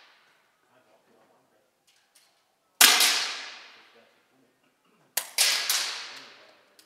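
Daystate Redwolf .177 PCP air rifle shots firing heavy pellets: one sharp crack about three seconds in, then two or three cracks in quick succession a little after five seconds, each dying away in a long echo off the walls of the indoor range.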